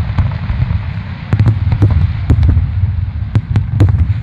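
Fireworks display: aerial shells bursting in the sky, about ten sharp bangs, some in quick clusters, over a continuous low rumble of booms.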